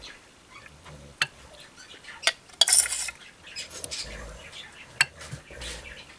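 Metal spoon spreading thick chocolate pudding in a glass baking dish, with a few sharp clinks of the spoon against the glass.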